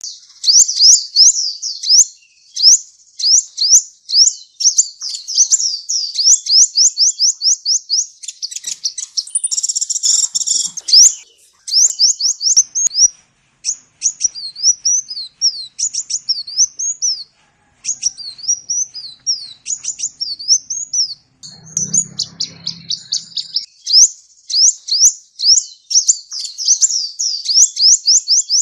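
Sunbird (kolibri) singing: rapid runs of high, thin, sweeping chirps with short pauses. One denser, harsher burst comes about ten seconds in.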